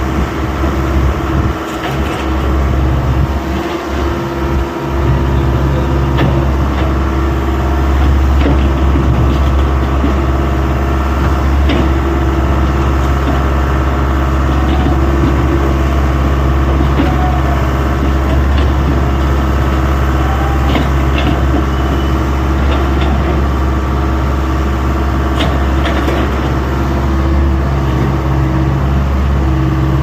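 Excavator's diesel engine running steadily with a deep hum, with a few short knocks now and then.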